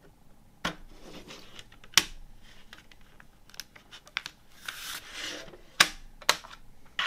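Plastic CD jewel case being opened and handled: a series of sharp plastic clicks and snaps, with a rustle of the paper booklet being handled about two-thirds of the way through.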